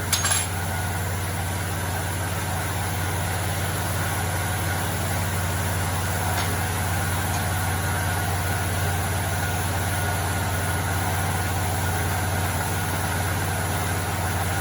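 Small generator engine running steadily with an even low hum, with a couple of clicks right at the start.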